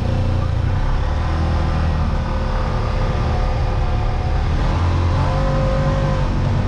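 Yamaha Wolverine X side-by-side's engine pulling away from a stop and picking up speed, heard from inside the cab; the engine note rises a little about five seconds in.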